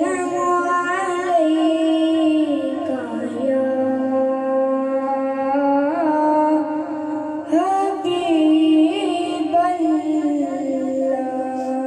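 A boy singing a naat into a microphone, unaccompanied, holding long high notes and gliding through ornamented turns between them.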